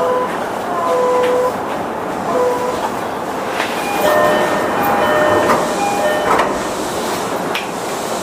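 Sotetsu 11000 series electric train with a Mitsubishi IGBT-VVVF inverter, heard from inside the car as it comes to a stop at a station. A steady running rumble is joined by short steady pitched tones in the first couple of seconds, then by a run of short chime-like tones at several pitches from about four to six and a half seconds in.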